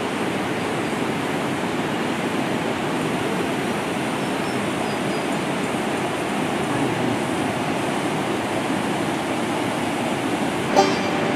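Steady rush of running water. Near the end an acoustic guitar begins strumming over it.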